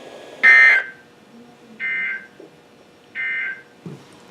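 NOAA Weather Radio SAME end-of-message data bursts: three short, buzzy two-tone digital chirps about a second and a half apart, marking the close of the severe thunderstorm warning broadcast. The first burst is much louder than the other two, with faint radio hiss between them.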